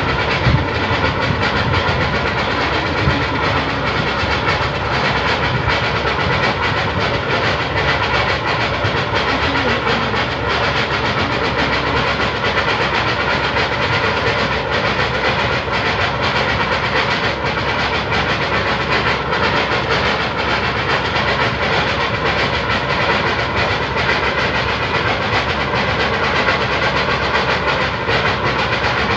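Natural gas jetting out of a well in an uncontrolled blowout (an open gas fountain): a loud, steady rushing noise that does not let up.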